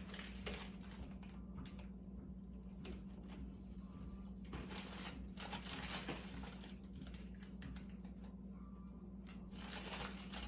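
Faint scattered crunching and rustling from puffed tapioca crisps being eaten and a snack bag being handled, over a steady low hum.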